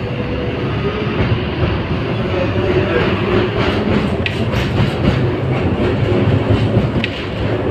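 LVS-86K tram running along the track, its wheels rumbling and clicking on the rails, heard through an open window. A few sharper clicks stand out in the second half.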